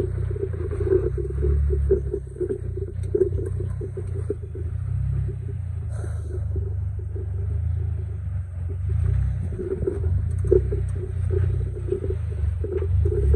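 Off-road vehicle engine running at low revs while crawling over rock: a steady low rumble with a few short knocks.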